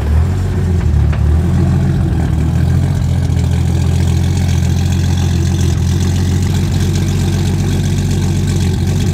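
Mk4 Toyota Supra's straight-six engine idling just after a start, the idle shifting and settling about a second and a half in, then running steadily.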